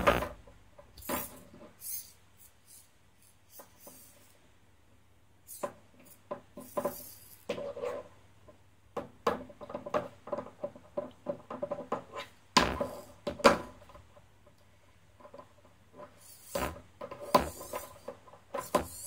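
A small soft robot being handled on a wooden desk: irregular knocks, clicks and scrapes as its plastic servo modules and silicone arms are moved and set down against the tabletop, loudest right at the start and again about 13 seconds in.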